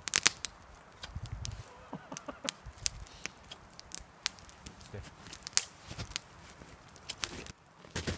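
A wood campfire crackling, with sharp irregular pops and snaps.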